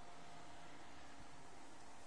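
Faint, steady room tone: an even hiss with a low hum, and no distinct sound event.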